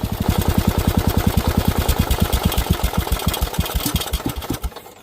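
Engine running at a slow idle with an even chugging beat; the beats slow over the last second or two and stop near the end as it shuts down.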